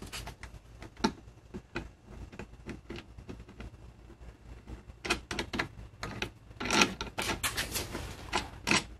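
Scattered small clicks and taps of a nut and bolt being worked by hand under an aluminum plate, coming thicker as a quick rattle of clicks a little past halfway.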